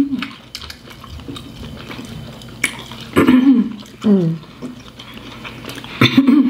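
Wet, sticky eating sounds of a sauce-drenched seafood boil eaten by hand: fingers pulling apart saucy shrimp and shellfish, with many short wet clicks and smacks. A couple of short hums come about three to four seconds in and again near the end.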